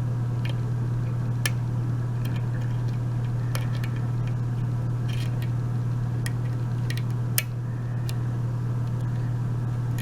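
Scattered, irregular light metallic clicks of a lock pick and tension wrench working the pins of a Binco pin-tumbler mortise cylinder, one sharper click about seven seconds in. A steady low hum runs underneath throughout.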